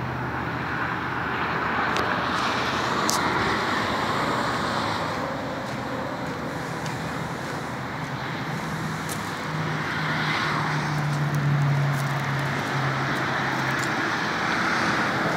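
Steady motor-vehicle noise: a low, even engine hum under a wash of road traffic.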